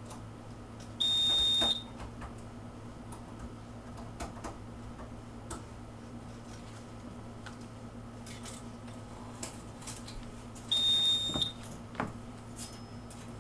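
Fire alarm control panel's trouble beeper sounding two short, loud, high-pitched beeps about ten seconds apart, the repeating warning of a panel in trouble. Faint clicks and taps of wiring being handled come in between.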